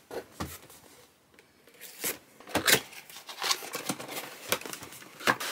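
Cardboard box being opened by hand: scattered scrapes, rustles and light knocks of the card flaps, sparse at first and busier from about two seconds in.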